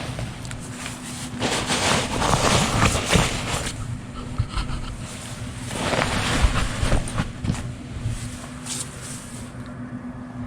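Wind gusting over the microphone in surges that swell and fade a few seconds apart, over a faint steady low hum.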